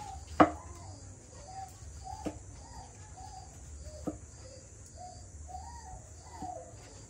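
A kitchen knife chopping slices off a cucumber onto a wooden cutting board: a few sharp chops, the loudest about half a second in. Soft bird calls run steadily behind them.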